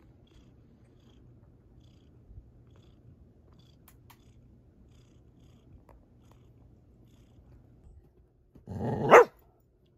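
Domestic cat purring, a faint steady low rumble. About nine seconds in, a dog gives one short loud vocal noise, the sound she makes when she wants attention.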